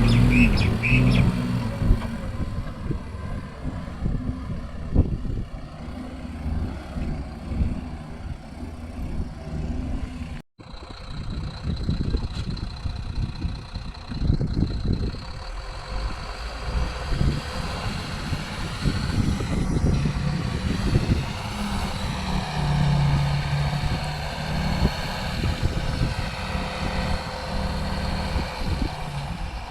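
Diesel engines of a SANY SY210C-9 excavator and a Bharat Benz truck running during mud loading, the level rising and falling as the machine works. The sound cuts out for a moment about ten seconds in.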